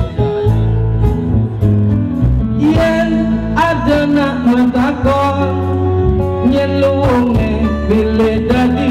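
Live band music led by an acoustic guitar; a man starts singing about three seconds in.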